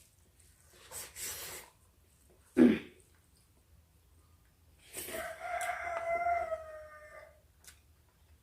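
A rooster crowing once, one long drawn-out call that drops in pitch at the end, a little past halfway. Before it there is a short, loud sound.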